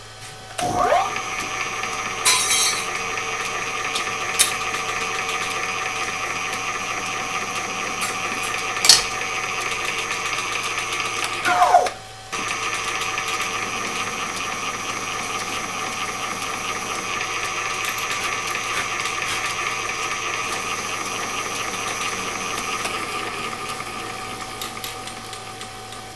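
Drill press motor spinning up and running with a steady whine as a 9/16-inch bit drills a balancing hole into the cast iron body of a lathe chuck. It winds down about 12 seconds in, starts again almost at once, and runs until a few seconds before the end, followed by a few light clicks.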